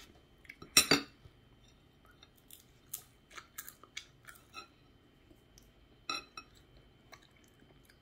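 Chewing and crunching of crunchy potato snack sticks under melted cheese, with a fork clicking against a ceramic plate; scattered sharp clicks, the loudest about a second in and another around six seconds.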